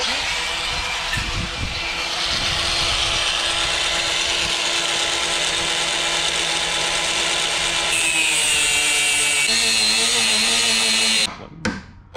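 Small angle grinder cutting through a bolt on the rusted rear number-plate bracket of a Scania truck. The bolt cannot be unscrewed and has to be cut off. It runs steadily for about eleven seconds, its pitch dropping as the disc bites, then stops, and a hammer strikes the bracket just before the end.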